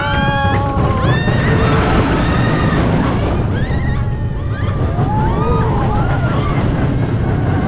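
Small roller coaster train running, with a steady low rumble and wind buffeting the microphone. Over it come many short high shouts and squeals that rise and fall in pitch.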